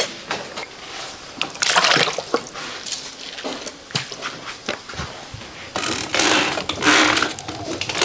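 Water pouring and sloshing as food is washed in a basin, in two longer spells of splashing, with scattered clicks and knocks of handling in between.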